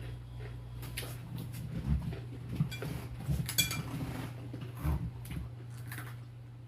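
Cutlery clinking and scraping on a plate while eating, with soft mouth noises: a few scattered clicks and light knocks over several seconds.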